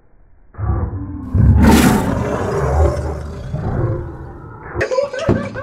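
A man letting out a loud, drawn-out roar at close range into the camera microphone, heaviest about a second in, trailing into laughing talk near the end.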